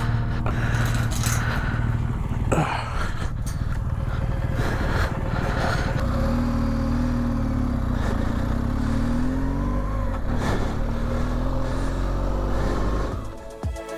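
Adventure motorcycle engine running at idle while the chain on a steel ranch gate is fastened, with a few metal clanks and a scraping rattle. Then the bike pulls away on a dirt track, its engine pitch rising and falling as it gathers speed.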